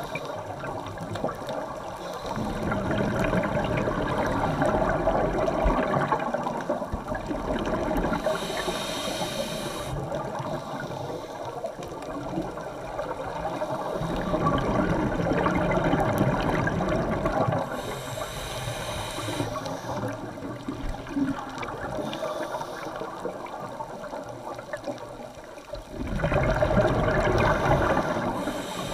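Scuba divers breathing through their regulators, recorded underwater: three long swells of exhaled bubbles, with shorter hisses of inhaling between them.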